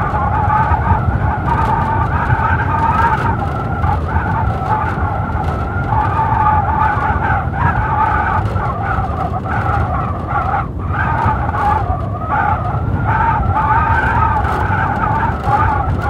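Blizzard wind blowing hard and steadily, with a wavering, whistling howl over a low rumble of gusts.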